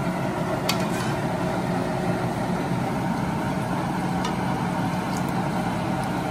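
Steady low hum of a running kitchen appliance, with a few faint clicks of a metal spoon against the pan and bowl as soup is scraped from a frying pan into a serving bowl.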